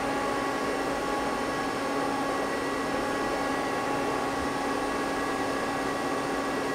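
Steady hum of a powered-on but idle Mazak CNC lathe and its control: an even hiss with a few fixed tones, unchanging in level.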